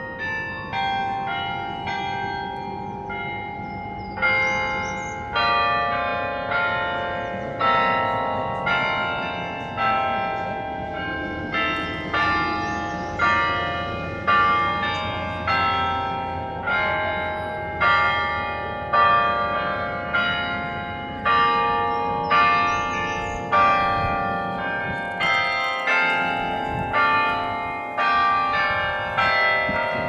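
The Carillon in Berlin's Tiergarten, a tower of 68 bronze bells played by hand from a keyboard, ringing a slow melody of single struck notes about one a second. Each bell stroke rings on and overlaps the next.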